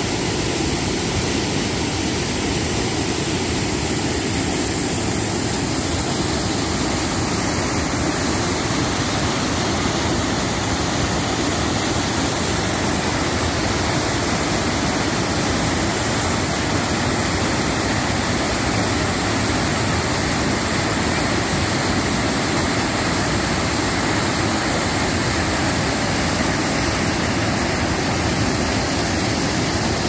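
Waterfall pouring down a rock face, a loud, steady, unbroken rush of falling water.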